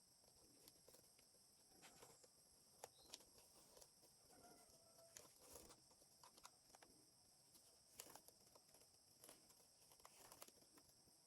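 Near silence: faint, scattered light clicks and taps with a little rustling, over a steady high hiss.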